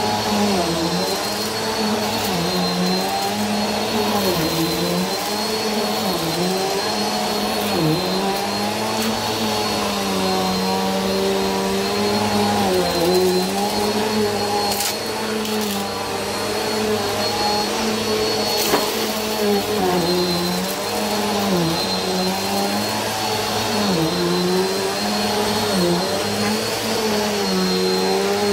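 Bissell upright bagless vacuum cleaner running while it is pushed back and forth over a rug. The motor's pitch dips briefly every second or two as the head is worked, over a steady high whine. A couple of sharp ticks come midway through, likely debris going up the nozzle.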